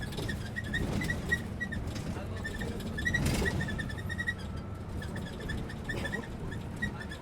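Old bus running with a low rumble, its body squeaking in rapid short chirps at one high pitch, several to the second, with a louder noisy surge about three seconds in.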